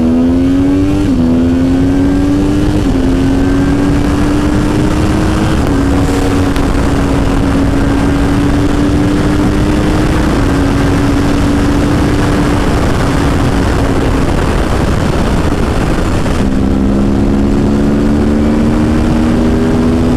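2009 Yamaha R1's crossplane inline-four accelerating hard through the gears, with an upshift about one, three and five and a half seconds in, each dropping the pitch before it climbs again. It then holds a steady highway cruise, and near the end the pitch dips and rises as it pulls again. Heavy wind rush over the helmet-mounted microphone at highway speed.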